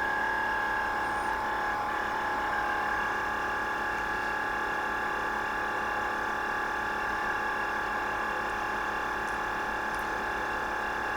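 Pod coffee maker's pump running dry after its water reservoir has emptied, a steady even drone with a high whining tone.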